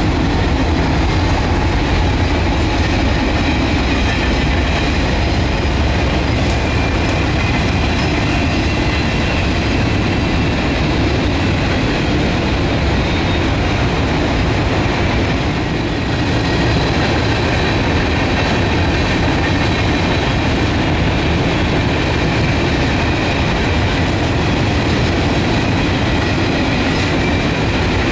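Freight cars of a mixed freight train rolling past, a steady rumble of steel wheels on rail with faint high-pitched wheel squeal over it.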